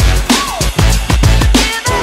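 Electronic drum-and-bass intro music with a heavy, regular beat and deep bass.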